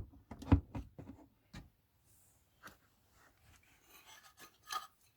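Speaker cabinets being shifted and handled by hand as a subwoofer is pulled out from behind another speaker: a quick run of knocks and rubs in the first second and a half, then scattered small knocks, with a few more near the end.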